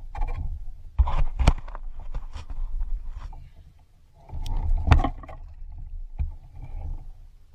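A redfish (red drum) thrashing and slapping in an angler's hands. There are sharp slaps at about one second and a second and a half in, a loud flurry of thrashing about four and a half to five seconds in as it flops free, and one more knock near six seconds. Wind rumbles on the microphone underneath throughout.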